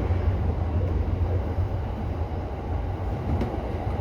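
Running noise inside an E231-series electric commuter train: a steady low rumble of wheels on rail and the car body, with one faint click about three and a half seconds in.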